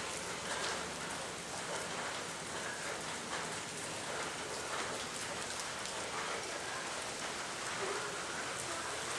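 Steady rain falling: an even, dense hiss with scattered close drop hits pattering on surfaces.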